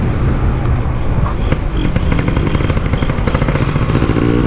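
Two-stroke Kawasaki Ninja 150 engine in an RX-King motorcycle, running while riding through an RX-King-style expansion exhaust, its exhaust pulses coming in a fast, rattly beat.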